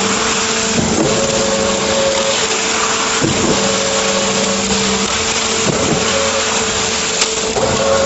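Trailer concrete pump running steadily while concrete pours from the mixer chute into its hopper, a loud machine hum with a recurring shift about every two and a half seconds. A sharp knock sounds near the end.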